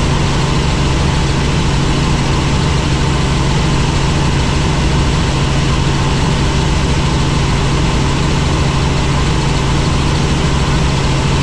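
Helicopter engine and rotor running steadily in flight: a constant low hum with a hiss over it, unchanging throughout.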